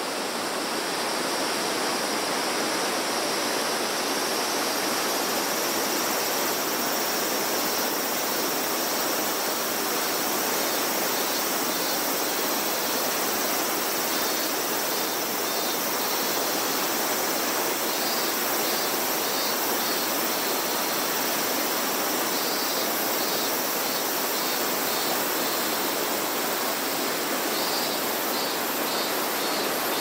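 Steady, unbroken rush of falling water from a waterfall. Faint high chirps come and go over it in the second half.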